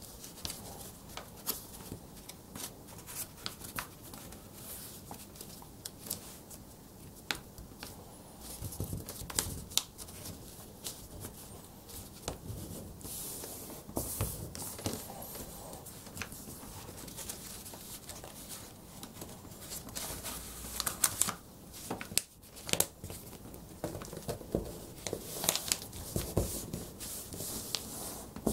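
A sheet of A4 paper being folded and creased by hand. Irregular rustling with many short, sharp crackles as the folds are pressed flat, busiest near the end.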